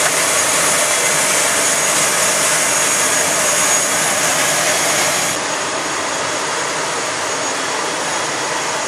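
Twin-engine turboprop airliner's engine running on the apron, a loud steady whine and rush. The level steps down about five seconds in.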